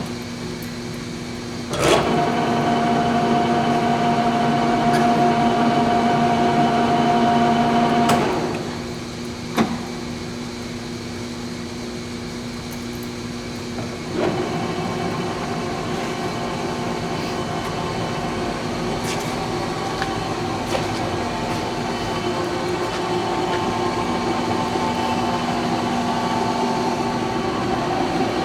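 Leblond engine lathe running under power, with a steady gear whine from the headstock. It grows louder about two seconds in and falls back about six seconds later. A single sharp clunk follows, then it steps up to a new steady pitch about halfway through as another speed or feed is engaged. The headstock is running sound, which the seller judges to sound good.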